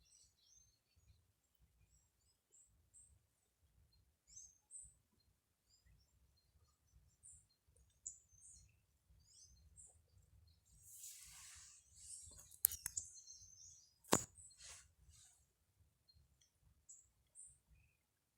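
Faint wild birds chirping, short high calls scattered throughout. About 11 seconds in there is a brief rustle, then two sharp clicks a second and a half apart, which are the loudest sounds.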